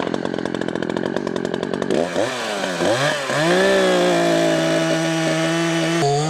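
Two-stroke chainsaw idling with a rapid, even firing beat for about two seconds, then revved up and down twice and held at a steady high speed from about halfway in.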